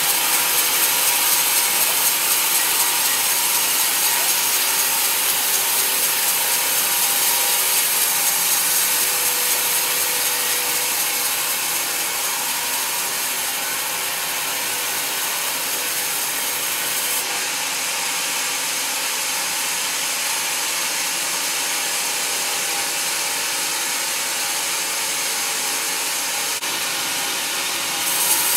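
Band sawmill blade cutting lengthwise through a large teak log, a steady hissing saw noise; its sharper upper hiss drops away about halfway through and comes back near the end.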